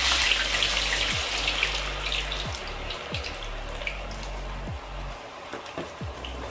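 Seasoned, parboiled potato wedges sizzling in hot deep-frying oil as they go in, a loud frying hiss that is strongest at first and gradually eases. Background music with soft low beats plays underneath.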